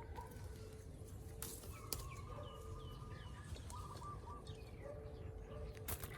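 Faint outdoor birdsong: a series of short chirps falling in pitch, with a few soft clicks among them.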